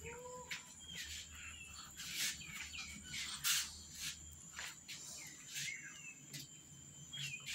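Small birds chirping in short, repeated calls, with scattered brief scuffling noises among the cats and kittens.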